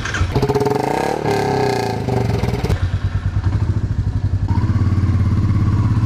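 Royal Enfield Meteor 350's single-cylinder engine running with a rapid, even pulse; its note shifts up and down in the first couple of seconds, then holds steady.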